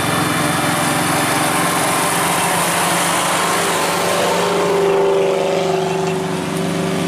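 Off-road 4x4 vehicle's engine running steadily, with one note of it coming through more strongly about five seconds in.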